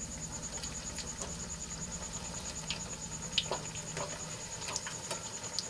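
Besan-batter-coated potato tikkis deep-frying in hot oil in a kadai: a steady sizzle with scattered crackles, and a perforated slotted spoon now and then clicking against the pan as the patties are turned, the sharpest click about three and a half seconds in.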